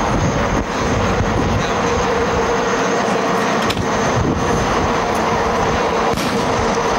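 Helicopter flying low overhead: a steady engine-and-rotor noise with a fluttering low beat and a held whine, with a few faint sharp cracks.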